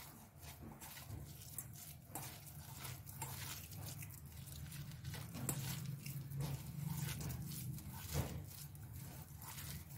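Bare hands mashing and mixing a boiled-potato, onion and capsicum stuffing in a steel bowl: soft squishing with irregular small scrapes and taps of fingers against the metal, over a steady low hum.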